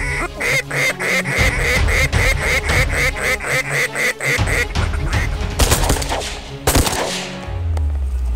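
A mouth-blown duck call sounded in a fast, even run of quacks, about four to five a second, which stops about four and a half seconds in. Two sharp bangs follow, about a second apart.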